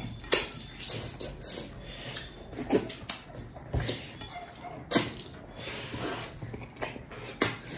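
Close-up mukbang eating sounds: chewing and slurping on buffalo trotter with thukpa, with several sharp clicks scattered through.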